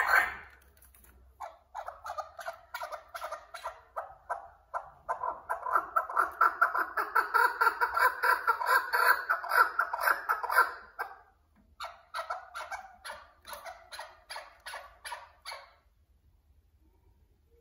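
Caged chukar partridges calling: long runs of rapid, repeated chuk notes, several a second. There are two bouts, the first from about a second and a half in to about eleven seconds, the second from about twelve to sixteen seconds.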